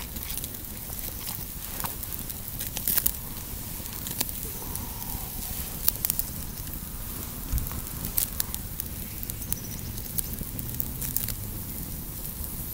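Open wood fire crackling, with scattered sharp pops over a steady low burning sound.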